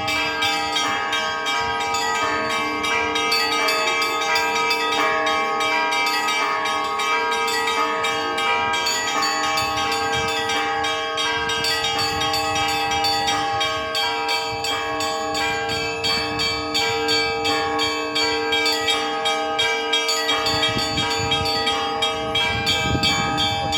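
Russian Orthodox church bells rung in a festive Easter peal: many bells struck rapidly and continuously, their tones ringing on over one another.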